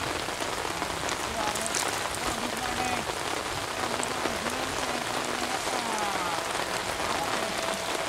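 Heavy rain falling: a steady, even hiss of pouring rain.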